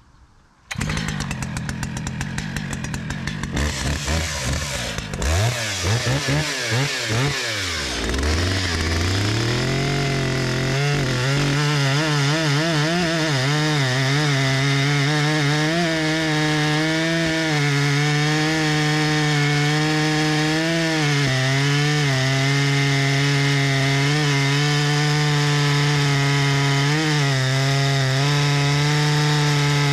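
Stihl MS 881 Magnum 122 cc two-stroke chainsaw running: at first pulsing at low speed, then revving up and down, then held at high revs with a steady, slightly wavering note as it cuts into a big oak log. The saw is new and is being broken in.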